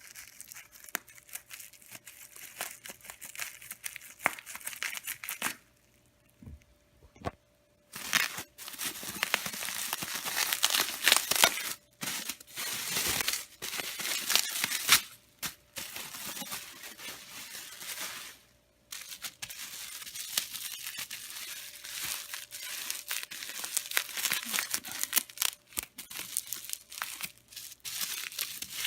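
Packing material being crumpled, crinkled and torn by hand, in stretches of several seconds with short pauses between them.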